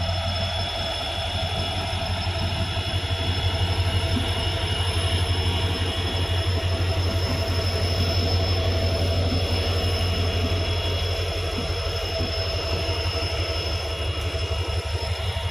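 Indian Railways WDP4-family EMD diesel locomotive passing, its engine a loud, steady deep drone that runs on without change.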